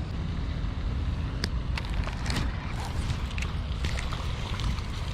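Wind rumbling on the microphone, with a few scattered short clicks.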